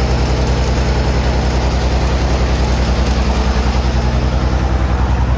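An engine running at a steady idle, a low even drone with a regular pulse.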